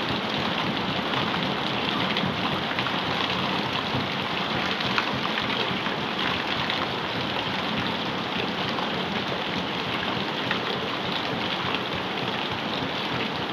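Heavy rain falling steadily, a dense even hiss of many small drops pattering on surfaces.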